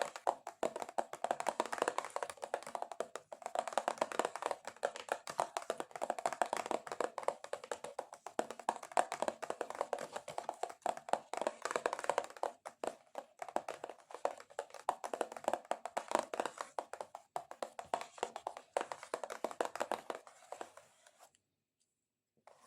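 Extra-long fingernails tapping fast and scratching on a cardboard box, a dense run of dull clicks. It stops abruptly about two seconds before the end.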